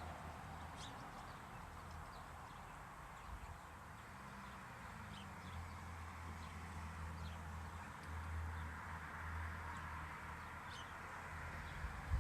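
Quiet outdoor ambience: a steady faint rushing background with a low hum, and scattered short, high bird chirps throughout.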